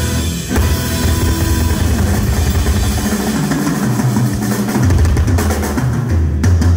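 Live rock drumming on a large Ludwig drum kit, with heavy bass drum and tom hits and crashing cymbals. Sustained bass and guitar notes sound along with it, and a run of hard separate accents comes near the end.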